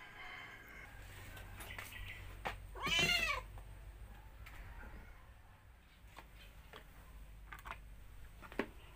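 A hungry domestic cat meowing for its food: softer meows in the first two seconds, then one loud, long meow about three seconds in that rises and falls in pitch.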